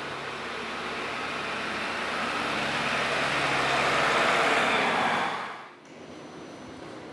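A motor vehicle's engine running, growing steadily louder over the first four seconds or so. The sound then drops away suddenly about five and a half seconds in, leaving quieter background noise.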